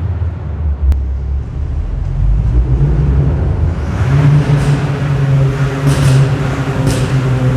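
2022 Ford Puma's engine and exhaust, with the exhaust flaps held open: a low rumble at low revs, then about three seconds in the revs climb and it holds a higher, steady note, with a few short crackles near the end.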